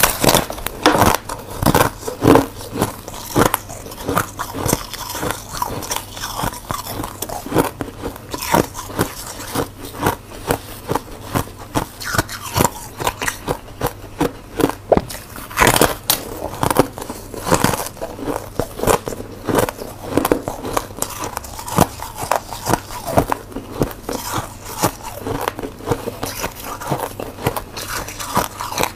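Close-miked biting and chewing of a lump of freezer frost: many irregular soft crunches and crackles in quick succession.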